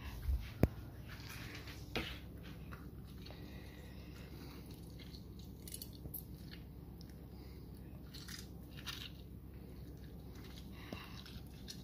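An orange being squeezed by hand for its juice: a few sharp knocks in the first two seconds, then scattered faint short noises.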